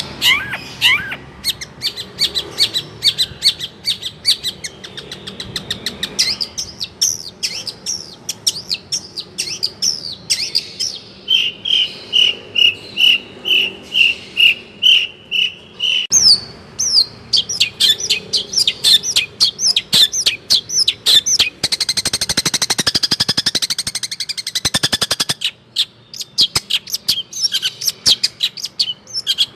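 Long-tailed shrike (cendet) singing a rapid, varied song of quick chirps and whistles. About a third of the way in comes a run of evenly repeated clear notes, and later a dense, buzzy chatter.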